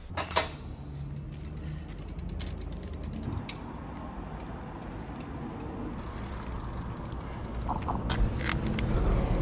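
A bicycle's freewheel ratchet ticking and its parts rattling as it is wheeled and ridden on pavement, over a steady low rumble. A sharp click comes just after the start, and a few louder clicks come near the end.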